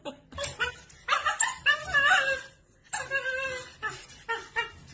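A puppy whining and yipping in high, wavering cries, two longer whines about one and three seconds in, among short clicks and rattles from a wire dog cage.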